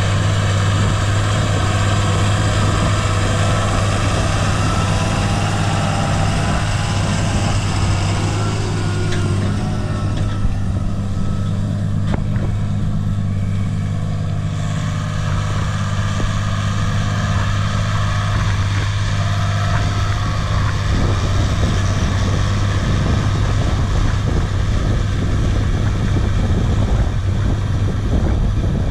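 John Deere 8100 tractor's six-cylinder diesel engine running steadily under working load while pulling a wide offset disc harrow through tilled soil.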